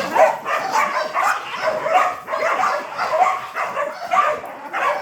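Dogs barking and yipping excitedly, a quick string of short, overlapping barks.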